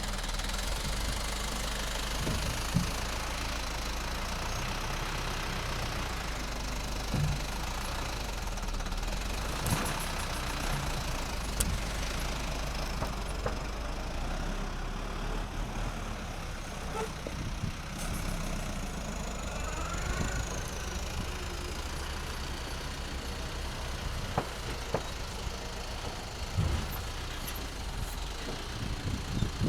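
Machinery running steadily with a low hum, broken by a few short sharp knocks.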